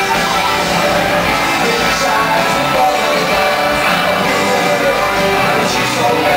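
Rock band playing live, heard from the audience floor: electric guitar, keyboard and drums, with singing.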